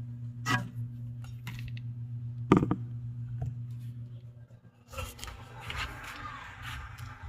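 NSS ceiling fan's motor humming steadily, with a few sharp clicks over it, the loudest about two and a half seconds in. From about five seconds, a scratchy rustling noise joins the hum.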